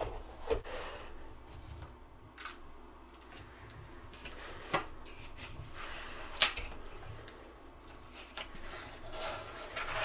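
Hands rubbing and tapping a braided cable and its cardboard box while reusable hook-and-loop cable ties are peeled open, with short rasping rips and a few sharp clicks; the longest rasp comes near the end.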